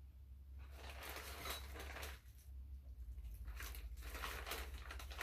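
Packaging rustling and crinkling in stretches as hands rummage through a coat-hook package for its hardware pack, with a short pause in the middle.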